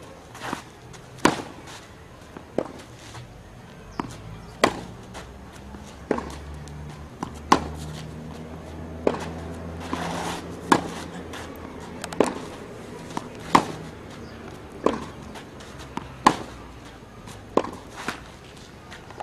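Tennis balls struck by racquets in a baseline rally on a clay court: a sharp pock about every second and a half, with fainter knocks from bounces and footsteps in between.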